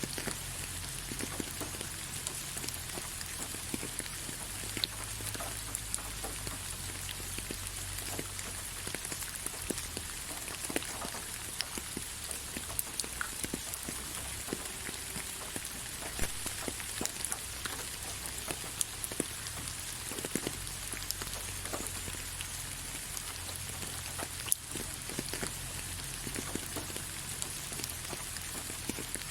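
Steady rain falling on leaves: an even hiss dotted with many individual drops ticking, a few of them louder.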